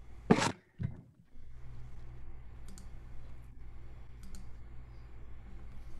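Two sharp clicks near the start, the first the louder, then a steady low hum with a few faint clicks.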